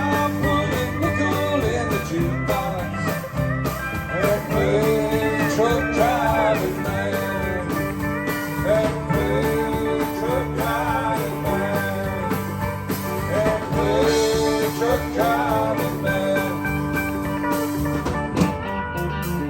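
Country band playing an instrumental break: a lead guitar plays runs of bent notes over a steady bass and drum beat.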